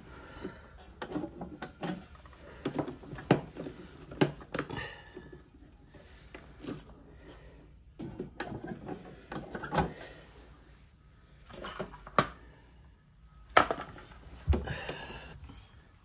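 Irregular plastic clicks, knocks and rattles as a refrigerator condenser fan motor in its plastic shroud is hooked and pushed by hand into its mounting bracket. Sharper knocks come about three seconds in, around four seconds, around twelve seconds and about thirteen and a half seconds in.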